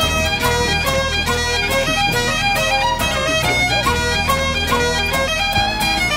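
Music with bagpipes playing a melody over a steady drone, with a fiddle.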